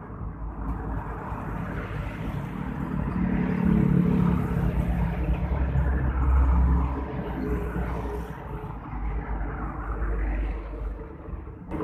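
Road traffic passing close by: engine rumble and tyre noise swelling to the loudest about four to seven seconds in as a vehicle goes by, easing, then rising again near the end.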